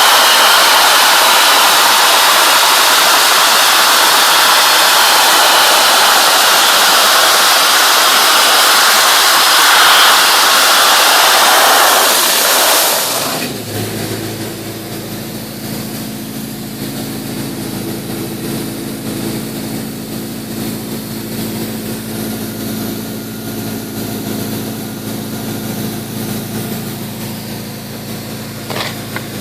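Dry-ice blasting nozzle firing crushed dry-ice snow, a loud steady hiss, that cuts off about thirteen seconds in. After it stops, a steady machine hum runs on at a lower level, with a few light clicks near the end.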